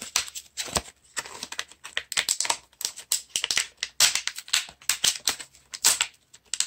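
Plastic blister packaging of a pack of metallic markers crinkling and crackling as it is handled, in quick irregular crackles.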